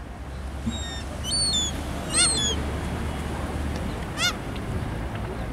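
Birds calling: a few short, high-pitched calls, the loudest about two seconds in and another about four seconds in, over a steady low rumble.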